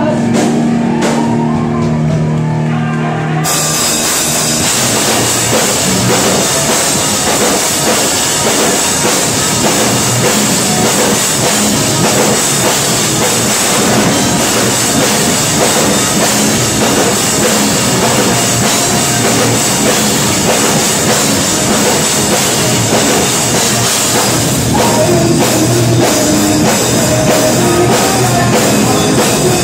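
Live rock band with electric guitars, bass and drum kit. Held notes ring for the first three and a half seconds, then the drums and cymbals come in and the full band plays loud, with vocals joining near the end.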